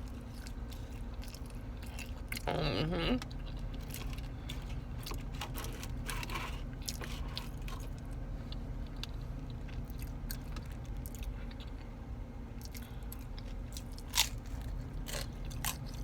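A person eating close to the microphone: chewing and biting food with crunching and small wet clicks, over a steady low hum. A short voiced sound comes about two and a half seconds in.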